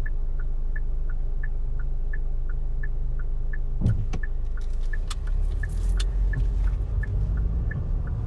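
Car turn-signal indicator ticking steadily inside the cabin, about three clicks a second in an alternating tick-tock, over the low rumble of the car's engine and road. A short thump comes about four seconds in, followed by scattered clicks and rustles as the rumble swells.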